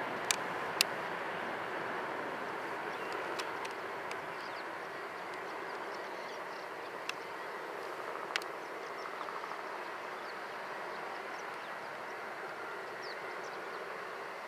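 Airbus A320-232's twin IAE V2527-A5 turbofans at high thrust as the jet rolls away down the runway on takeoff: a steady rushing jet noise that slowly fades. A few sharp clicks cut through it, two near the start and one about eight seconds in.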